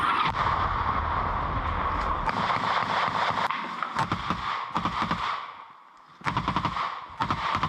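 Automatic rifle fire at close range, shot into a dugout in several rapid bursts, with a short pause about six seconds in before a final burst.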